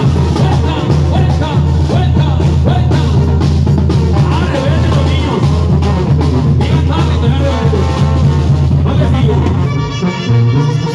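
Loud live Mexican brass band (banda) music: trumpets over a pulsing low bass line and a drum kit. The bass drops out briefly near the end.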